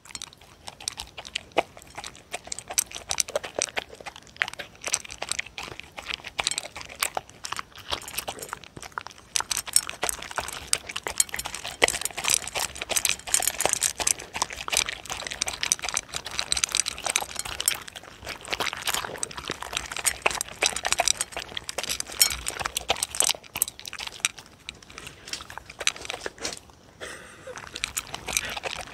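Dogs eating dry kibble mixed with pieces of beef, chicken breast and egg from a plate: continuous rapid crunching and chewing.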